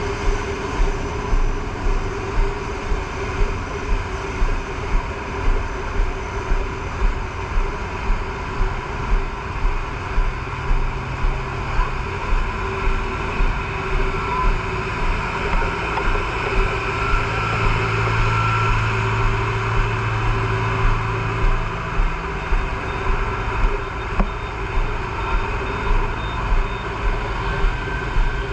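Fire pumper truck's engine running in a steady drone, with a regular pulsing about one and a half times a second.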